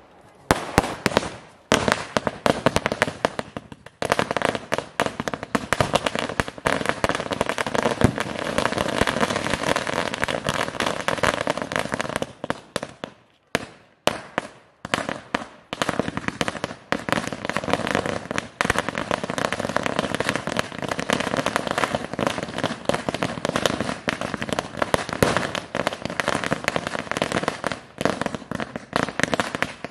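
Firecrackers going off in a rapid, dense run of crackling pops. The run breaks off briefly a few times.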